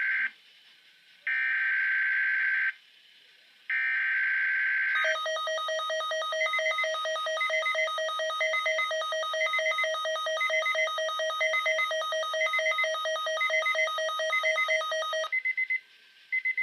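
Weather Radio Canada alert signalling for a required monthly test. It starts with three SAME digital header data bursts of about a second and a half each. About ten seconds of pulsing alert tone follow, then two short data bursts near the end.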